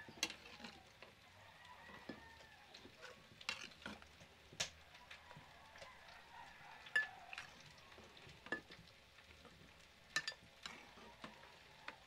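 A spoon scraping and knocking against a clay cazuela and a glass blender jar as fried tomatoes and chiles are scooped into the blender: scattered sharp clicks every second or two over a faint hiss.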